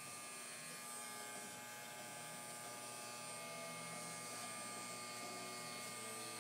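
Andis BGRC corded hair clipper running with a steady electric buzz as its blade cuts short hair along the side of the head.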